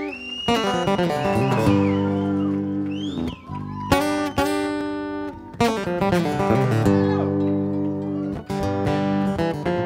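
Live band music: acoustic guitar strumming over bass, drums and keyboard, with a harmonica playing a lead line of bending notes.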